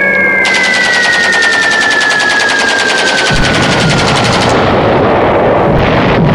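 Rapid machine-gun fire with a high whistle over it that glides slowly down in pitch. About three seconds in, a deep rumble like an engine comes in, and the gunfire stops about a second later.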